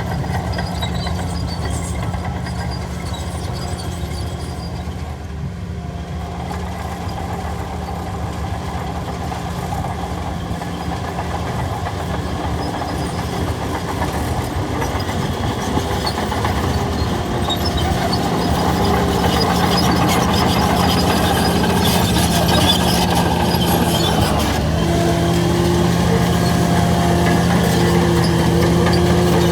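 Heavy earthmoving machine's diesel engine running steadily. It grows louder past the halfway point, and its pitch shifts a few seconds before the end.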